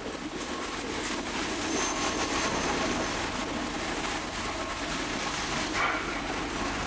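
Steady mechanical din of a shoe factory floor: a dense rushing noise with fine clatter throughout.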